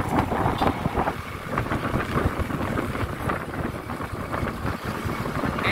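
Wind buffeting the microphone: a loud, uneven low rumble and rush.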